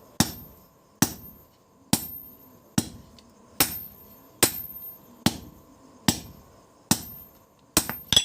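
A blacksmith's hammer striking steel while forging a billhook blade: a steady run of single ringing blows, a little more than one a second, ending with two quick blows close together.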